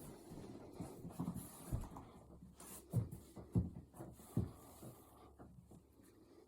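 Hands working a patient's feet on a chiropractic treatment table: soft rubbing and handling noise with a few dull thumps between about two and four and a half seconds in.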